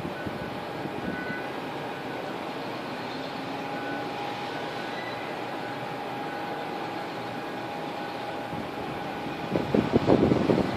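Steady distant urban background noise, like traffic, with a few faint steady tones. About nine and a half seconds in, irregular gusts of wind buffet the microphone.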